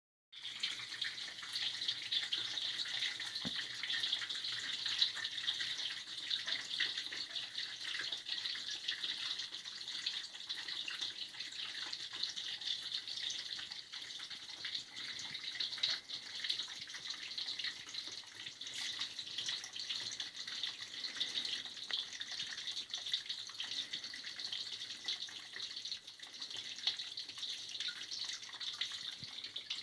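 Decorative drip waterfall running: a steady patter of many falling water drops.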